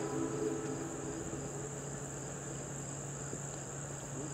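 Steady high-pitched chirring of crickets, with a faint steady low hum underneath. A faint held tone in the first second and a half fades out.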